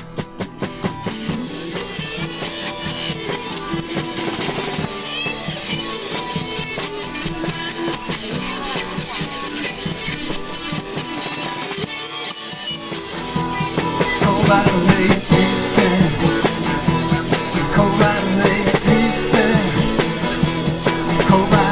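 Live band instrumental passage: drum kit, electric guitar and acoustic guitar playing together, getting louder and fuller about halfway through.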